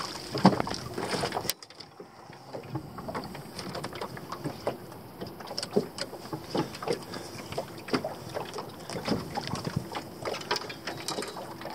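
Water lapping and slapping against the hull of a small fishing boat, with many light irregular knocks. A louder rustling stretch with one sharp knock cuts off suddenly about one and a half seconds in.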